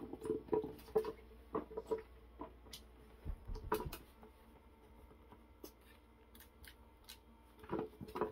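Scattered light clicks and taps of a meerkat pawing at the plastic dome of a CatKit smart mole cat toy, thicker in the first few seconds and thinning out, over a faint steady hum.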